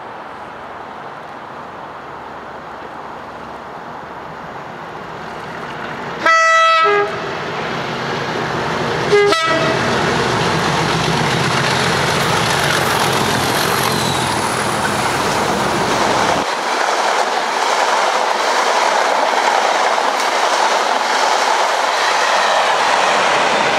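Train approaching and running past, sounding its horn in a blast of about a second, then a short second toot about three seconds later. The rumble and clatter of the passing train then fill the rest.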